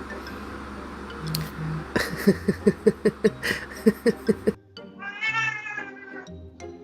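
Domestic cat meowing: a quick run of short, clipped calls about four a second, then one longer meow that rises and falls.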